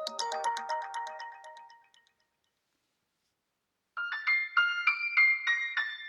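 OnePlus 12 ringtones: one melodic ringtone fades out over the first two seconds, then after about two seconds of silence the next ringtone starts, a bright keyboard-like melody of quick notes, about four a second.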